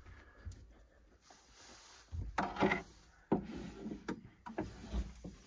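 Bungee cord being stretched and hooked over a portable fridge's lid: rubbing and handling noises, with a sharp knock a little over three seconds in.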